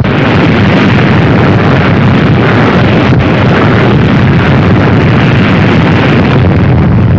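Nuclear explosion sound effect: a loud, steady, deep rumble of the blast that holds without a break.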